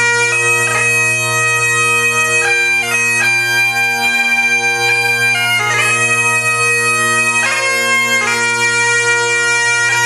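Bagpipe music: a steady drone held under a chanter melody that moves from note to note with quick grace-note flourishes.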